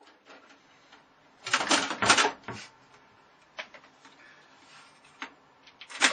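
Clattering knocks: a burst of loud rattling impacts about a second and a half in, then a few single sharp clicks and knocks.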